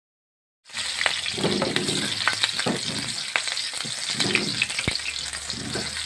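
Chopped garlic and chilies sizzling in hot oil in a wok, stirred with a spatula that clicks and scrapes against the pan. The sizzle starts suddenly about two-thirds of a second in and holds steady.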